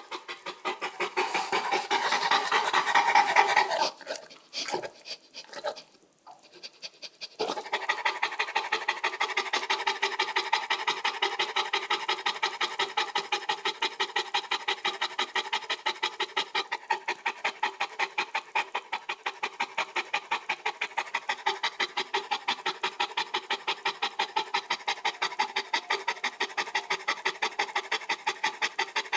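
Dogue de Bordeaux (French mastiff) panting heavily in a rapid, even rhythm of breaths. The panting breaks off for a few seconds about four seconds in, with a few scattered sounds, then resumes and keeps up steadily.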